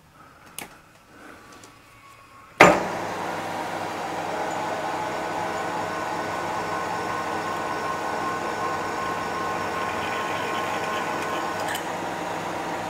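Milling machine spindle switched on with a sharp clunk about two and a half seconds in, then running steadily with an even hum of several tones while a twist drill cuts a hole in a metal tube, the spindle set to a slower speed.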